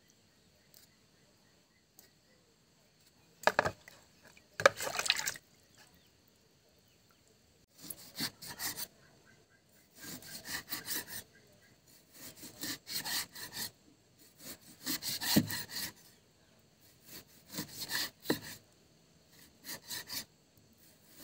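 Kitchen knife scraping and slicing through pork on a wooden chopping board, in bursts of rapid sawing strokes about a second long with short pauses between.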